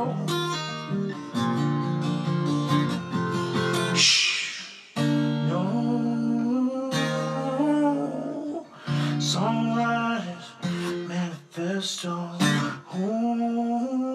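Acoustic guitar strummed under a man's wordless, drawn-out sung vocal, in a solo acoustic song. The playing stops briefly about five seconds in, then picks up again.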